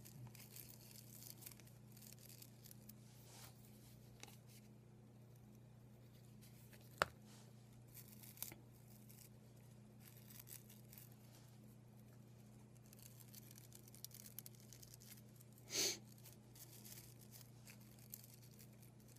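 Faint rustling of paper as fingers press and shape a red quilled paper flower on its stem, over a low steady hum. There is one sharp click partway through and a short, louder rustle near the end.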